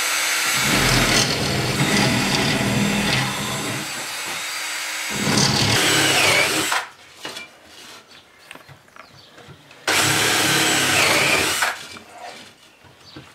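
Cordless drill boring through a wooden trim strip, running in two stretches: a long one of about seven seconds, then a second of about two seconds a few seconds later.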